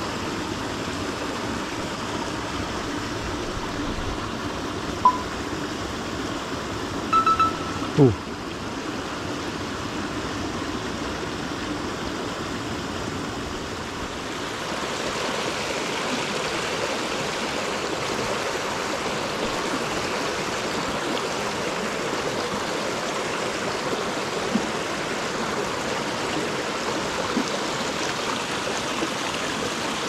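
Small mountain creek running over rocks and a low concrete weir, a steady rush of water that gets fuller and brighter from about halfway through. Between about five and eight seconds in, a few short high tones and one quick downward-sliding squeak sound over the water.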